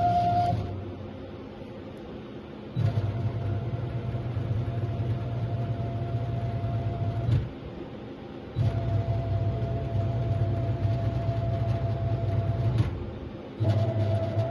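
Agie Charmilles EDM Drill 20 electrical-discharge drilling machine running in cycles: a steady hum with a high whine that starts about three seconds in, stops for about a second twice, and starts again, with a click at each change.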